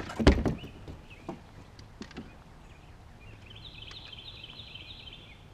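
Two sharp knocks right at the start, then a few lighter taps, as a smallmouth bass is handled and laid on a measuring board on a plastic kayak. A high, rapid trill from an animal sounds in the background from about three and a half seconds in.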